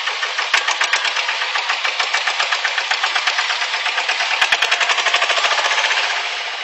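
Engine running with a rapid, even pulsing, easing down near the end.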